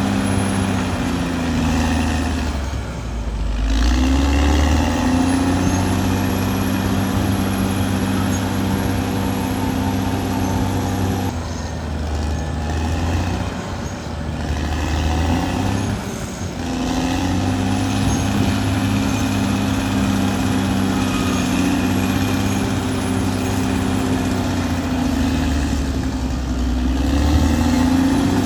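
Caterpillar D6R XL bulldozer's diesel engine running steadily. The engine speed sags and climbs back up three or four times.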